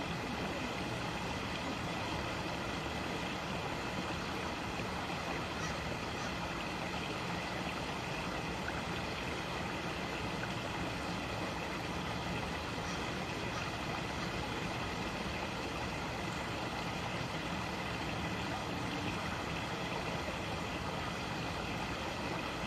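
Creek water running steadily over rocks, a constant even rushing.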